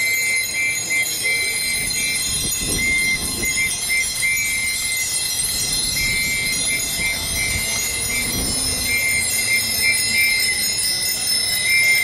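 Bell-like chiming music: sustained high ringing tones with a short, repeating high melody, over faint crowd voices.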